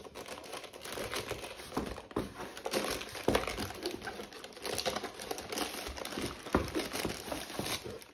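Plastic wrapping crinkling and rustling, with many small clicks and light knocks, as a PC power supply in its plastic bag is handled and pulled out of foam packaging.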